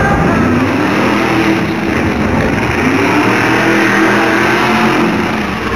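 Modified off-road pickup truck's engine revving hard as it drives the dirt course, its pitch rising and falling with the throttle.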